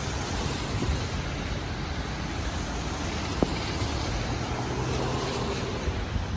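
Steady outdoor road traffic noise, a wash of passing cars with a low rumble, and a single sharp click about three and a half seconds in.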